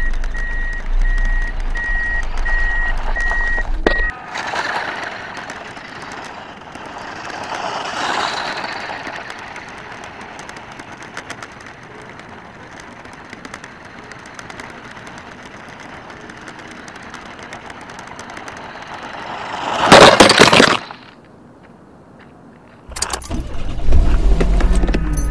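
WPL D12 radio-controlled kei truck driving over gravel: its electric drive and tyres on loose stones rise and fall as it moves around. There is a row of short high beeps at one pitch for the first four seconds, and a very loud rushing burst about twenty seconds in. The sound drops away sharply for a couple of seconds, then comes back loud as the truck comes right up to the microphone.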